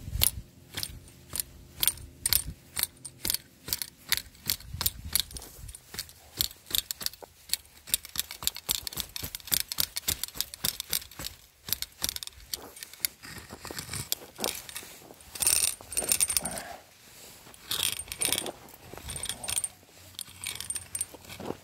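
Dry twigs and brush crackling and snapping in quick, irregular clicks, with a few louder rustling bursts in the second half.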